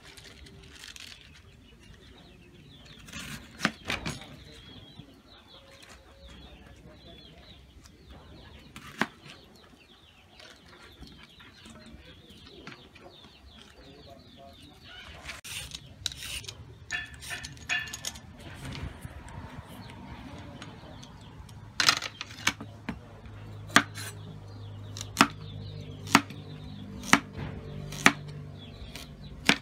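Vegetables being cut by hand on a wooden cutting board: scattered soft cuts and clicks as cabbage and onion are handled, then, in the last several seconds, a kitchen knife chopping a carrot into rounds with sharp knocks on the board about once a second.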